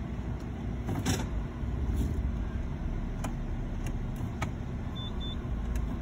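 Nissan Juke's engine idling, with a series of short clicks and clunks as the automatic gearbox selector is moved between drive, park and reverse. The loudest clunk comes about a second in.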